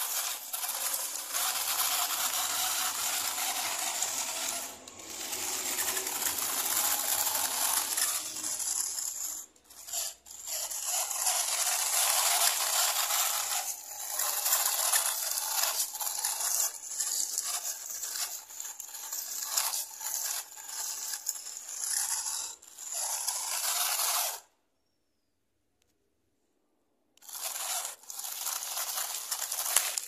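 Homemade remote-control car driving: its small battery-powered motors and wheels make a scraping, rattling noise over the ground that stops and starts several times. The noise cuts out for about three seconds near the end, then comes back.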